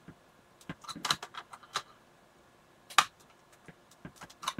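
Scattered plastic clicks and rattles as a test-jig plug is pushed into the instrument cluster's connector and the circuit board is handled, with one sharp click about three seconds in.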